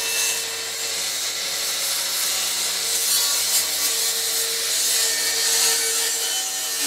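DeWalt FlexVolt 60-volt cordless circular saw cutting across a plywood sheet. The motor holds a steady whine under load beneath the blade's hiss through the wood.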